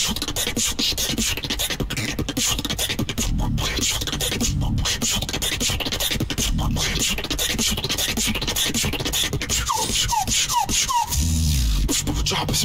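Solo beatboxing into a microphone: fast vocal percussion with hissing strokes over deep bass. About ten seconds in, four short rising whistle-like chirps come in quick succession, followed by heavier bass.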